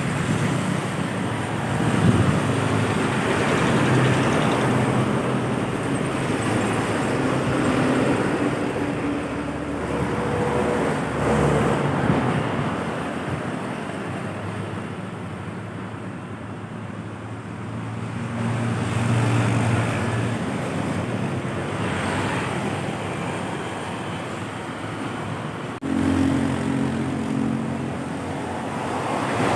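Heavy trucks and buses passing on a road, their engines swelling and fading one vehicle after another, with an abrupt change in the sound near the end.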